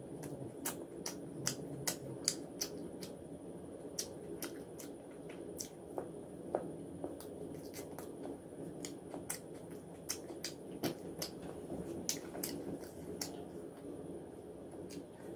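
Close-miked chewing and mouth smacking of a person eating fried fish and fried rice, with frequent sharp clicks from the mouth.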